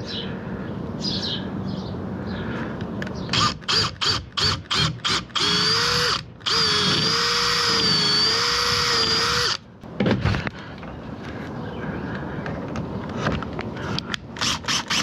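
Power drill boring into the camper's framing: a string of short trigger bursts, then a steady whine of about four seconds with a slightly wavering pitch and a brief break, and a few more short bursts later.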